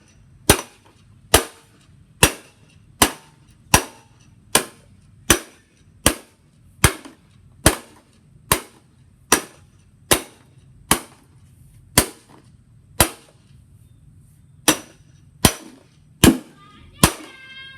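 A steady series of sharp, ringing cracks, a little more than one a second and about twenty in all, over a faint low hum.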